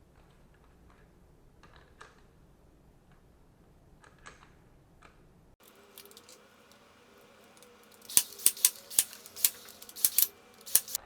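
Faint metal ticks, then a quick run of about eight sharp, loud metallic clicks and clinks in the last three seconds, from tools and small parts being handled during engine cover disassembly.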